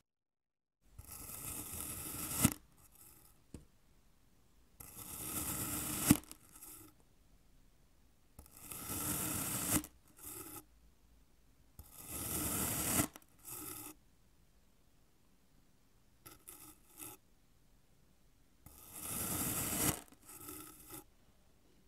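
Knife blade slicing down through a moulded block of packed sand: five main gritty scrapes of about a second each, most ending in a sharp tap of the blade on the surface beneath, with a few shorter scrapes in between.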